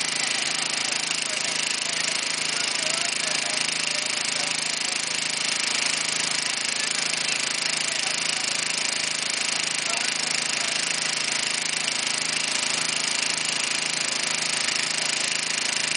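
Small engine of a hydraulic rescue-tool power unit running steadily at constant speed, with an even pulsing underneath.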